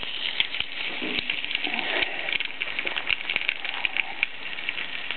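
Small campfire crackling: a rapid, continuous patter of fine crackles and pops.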